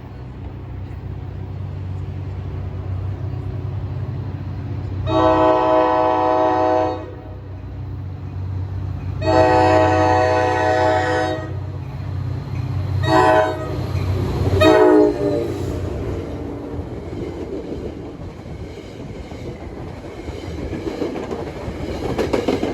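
A passing train's horn: two long blasts, then two short ones, the last dropping in pitch as the train goes by. Under it is the steady rumble of the locomotive, and after the horn the rumbling of the cars rolling past.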